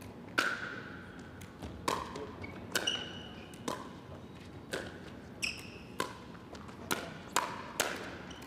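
Rally of sharp pops as a hard plastic pickleball (Franklin X-26) is hit by paddles and bounces off the court, about a dozen hits at irregular intervals of half a second to a second, each with a short hollow ring.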